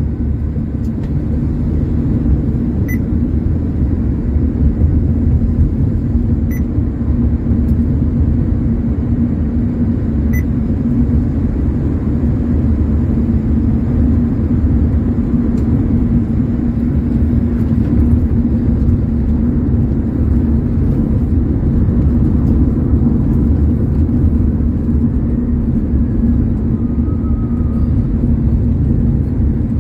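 Steady road and engine rumble inside the cabin of a Honda sedan cruising at highway speed. Three faint, short high beeps sound in the first ten seconds.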